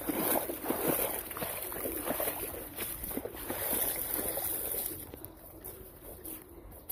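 Footsteps splashing through shallow water running down a waterlogged, grassy trail, with wet grass brushing past. The splashing is loudest at first and eases off about five seconds in.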